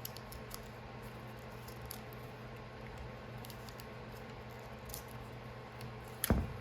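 Faint light clicks and rustling as paper is worked through the breaker points of a Homelite Super XL chainsaw to clean them, over a steady low hum, with a single sharper knock about six seconds in.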